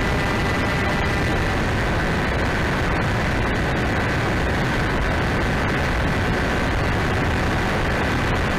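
Wind rush and the steady whine of an XK A700 RC plane's electric motor and propeller, picked up by a tiny camera riding on the plane in flight.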